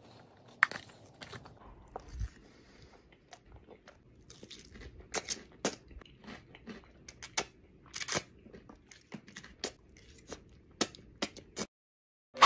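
A person chewing and eating noodles: irregular wet chewing and smacking clicks, ending abruptly near the end.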